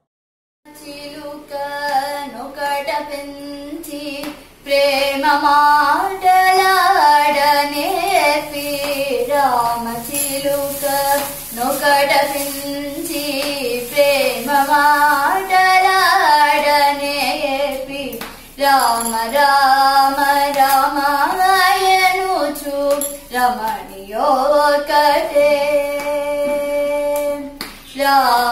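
A young woman singing solo, with no instrument, in long ornamented phrases that glide between notes and pause briefly between lines. Her hand taps now and then to keep time.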